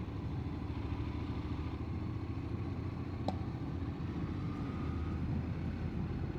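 Motorcycle engine running steadily under way, with road and wind noise. A single short click about three seconds in.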